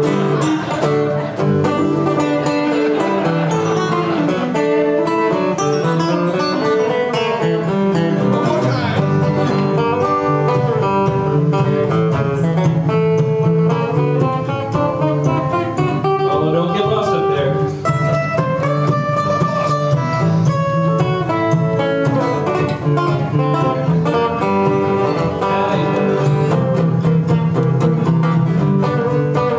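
Two acoustic guitars playing a tune together.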